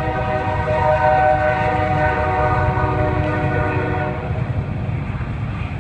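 Freight locomotive horn held in one long blast that stops about four seconds in, over the low rumble of the freight train rolling past.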